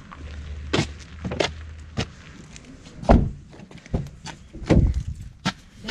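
Footsteps on pavement, then a car's outside door handle is pulled and the door unlatched and opened, with several sharp clunks and clicks; the loudest is a heavy thump about three seconds in.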